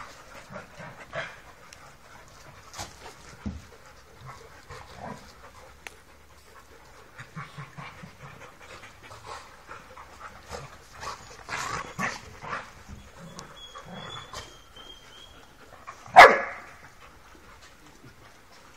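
Several doodle dogs playing together, panting and scuffling, with scattered short barks and one loud bark about sixteen seconds in.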